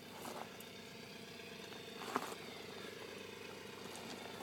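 Engine idling faintly and steadily, with a short click about two seconds in.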